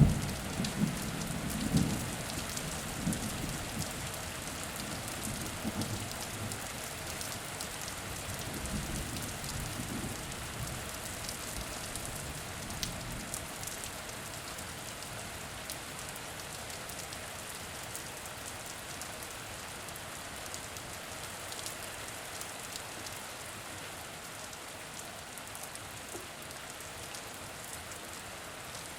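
Steady rain falling, with individual drops heard as small sharp clicks. A low rumble of thunder dies away over the first ten seconds or so.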